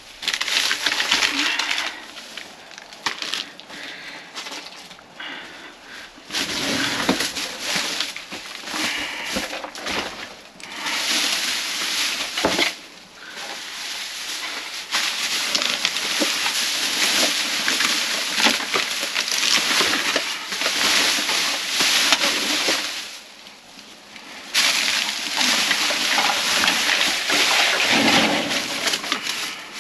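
Clear plastic trash bags crinkling and rustling as they are grabbed, pulled and shifted by hand, in long bursts with short pauses between.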